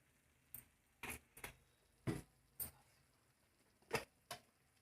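Light clicks and taps of a kitchen utensil, about seven in all at uneven spacing, the loudest about two seconds in, as a pinch of asafoetida is added.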